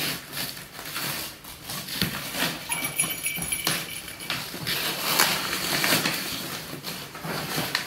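Brown wrapping paper being ripped and pulled off a large cardboard box in repeated rustling tears, with scissors cutting into the paper. A faint high steady tone sounds for a second or so in the middle.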